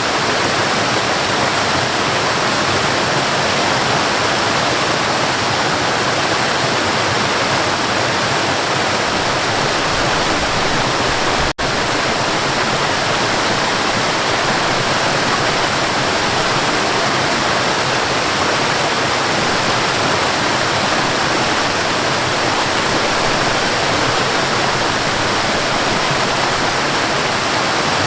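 Waterfall: a steady, unbroken rush of falling water. It cuts out for a split second a little before halfway.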